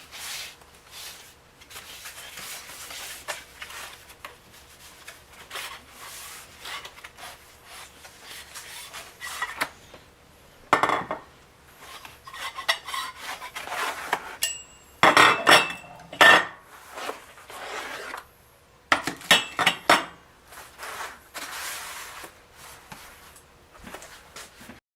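Gun vise parts being unpacked and handled: rustling packing material broken by clinks and knocks as pieces are picked up and set down, with louder clusters of knocks about 11, 15 and 19 seconds in.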